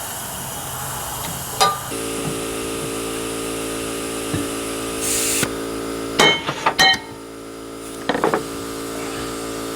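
Metal parts of a lawn mower deck spindle clinking and ringing as they are handled during disassembly: a single clink, then a quick cluster of clinks about six seconds in and another near the end. Under them a steady machine hum starts about two seconds in, and there is a brief hiss midway.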